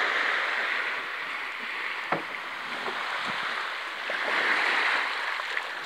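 Small waves lapping and washing up a sand-and-pebble shore, the wash swelling twice, with a faint click about two seconds in.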